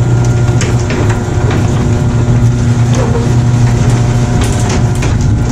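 Motorized ice cream trike's engine idling steadily, a loud low hum with a fast flutter.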